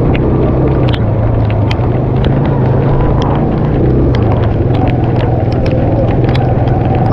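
Motorcycle engine running steadily while riding, a constant low hum with no revving, and many short sharp clicks scattered over it.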